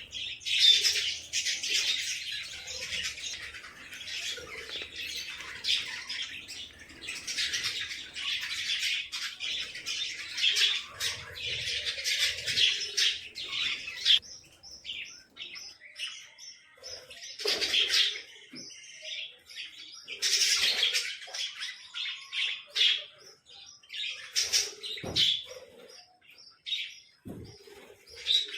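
Small birds chirping in a dense, rapid, high-pitched chatter. It thins to scattered chirps in the middle and turns dense again about twenty seconds in.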